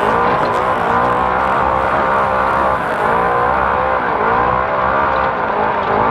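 Naturally aspirated off-road race car's engine running hard, heard from inside the car, its pitch rising and falling every second or so, over steady noise from the car's movement.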